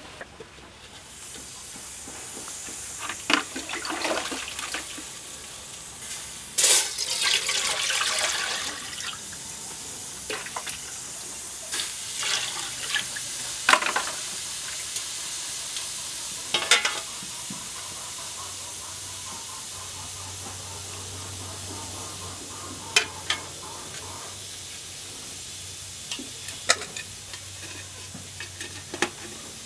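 Water boiling in an aluminium pot, a steady hiss that starts about a second in, with several sharp metal clanks and clatters from the aluminium steamer pot and its lid being handled.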